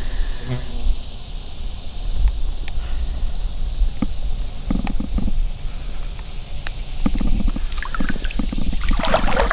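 Steady high-pitched insect drone over a low rumble, with a few short soft handling knocks and rustles.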